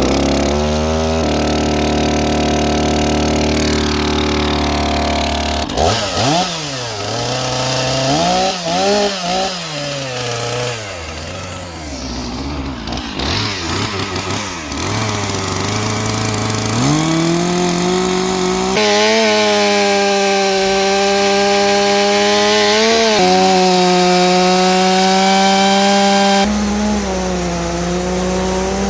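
Large gas chainsaw running loud: steady at first, then revving up and down, then held at high speed from partway through, as it cuts sections off a 4-foot-diameter silk oak log. The sound changes abruptly a few times.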